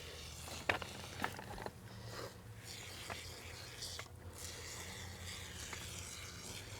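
A few small clicks and knocks of a rock being set into place in the first two seconds, over a faint steady hiss.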